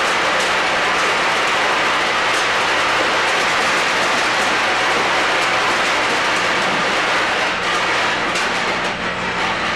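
Tridyne F-206 high-speed packaging machine and carton conveyor running: a steady, dense mechanical clatter with faint quick ticks over a low steady hum.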